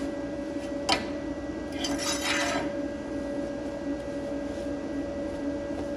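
A small welded steel tee-joint piece handled on a steel welding table: one sharp knock about a second in, then a short scrape as it is slid and set down. A steady hum runs underneath.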